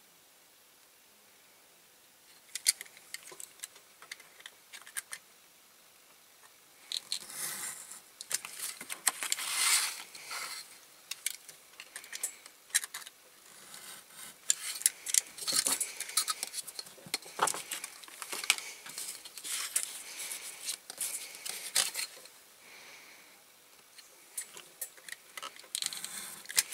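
Small hand-work sounds: irregular clicks, taps and scrapes of tools and small parts being handled, busiest in the middle and sparser toward the end.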